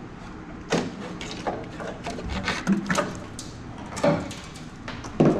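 Irregular clicks and knocks, about six over a few seconds, as a pickup's tail light wiring harness and its clips are worked free by hand.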